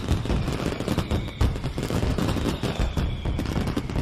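Fireworks sound effect: a loud, dense, rapid crackle of bangs and pops.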